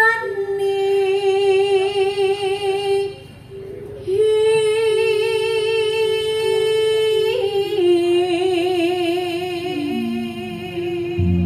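A woman singing into a microphone, holding long notes with a wide vibrato. She pauses for about a second a little over three seconds in. A low steady tone comes in just before the end.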